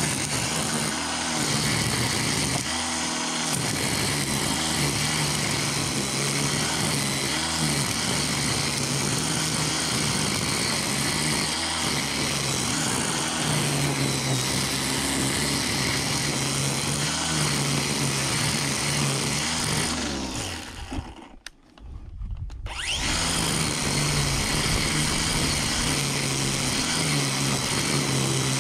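DEWALT DCST922B 20V cordless string trimmer running steadily with its line spinning. About 21 seconds in the motor cuts out and winds down, then spins back up about two seconds later and runs on.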